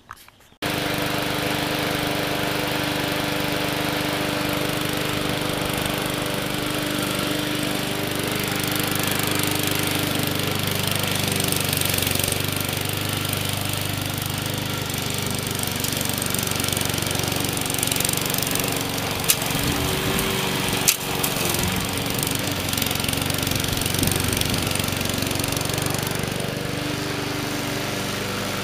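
Small gas engine of an MTD 20-inch push mower (Briggs & Stratton) running steadily as the remote-controlled mower drives over grass. Two sharp clicks a couple of seconds apart come about two-thirds of the way in.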